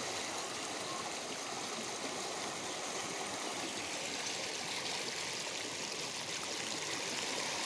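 Floodwater rushing steadily, an even noise of fast-moving water with no breaks.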